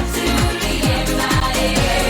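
Music with a steady kick-drum beat, about two beats a second.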